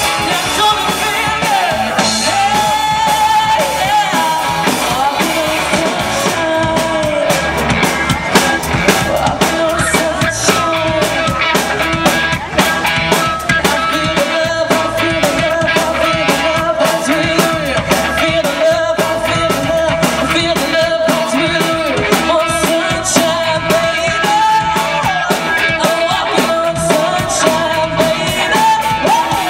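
Live rock band playing: a woman singing lead over electric guitars, bass and a drum kit, loud and steady throughout.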